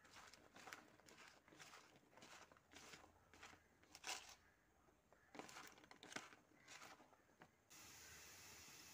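A hand tossing and squeezing spice-coated raw tuber pieces in a plastic bowl: irregular soft crunching and rustling. Near the end it cuts to a steady hiss of the pieces frying in oil.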